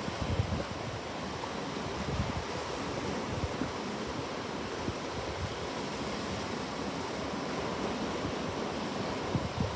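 Ocean waves washing on a shore in a steady rush of surf, with small swells of sound near the start and the end.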